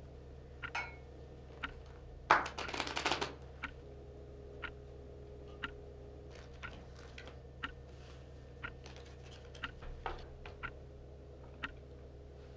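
A clock ticking steadily, about once a second, over a low room hum. A louder scraping rustle lasting about a second comes a little over two seconds in.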